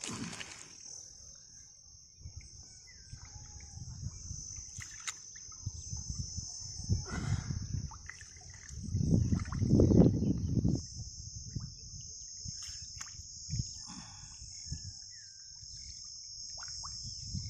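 Hands groping and sloshing through thick muddy water, loudest in a long swell about nine to ten seconds in. Behind it runs a steady high insect drone, with a few short bird chirps.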